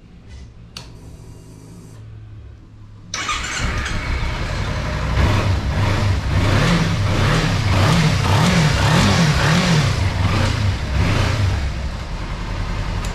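Kawasaki Ninja 300 parallel-twin motorcycle engine starting loud about three seconds in, then revving up and down over and over.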